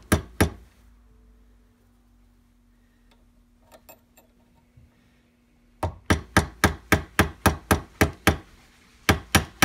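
Small hammer tapping the brass ferrule on a wooden chisel handle, working the bent, lopsided ring back to round: two taps at the start, a pause with a few faint handling clicks, then a steady run of quick taps, about four a second, from about six seconds in.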